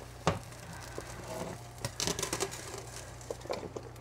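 Metal pot and lid knocking and clinking on the stove as the pot is handled: one sharp knock near the start and a quick cluster of clinks around halfway, with a few lighter ticks later, over a steady low hum.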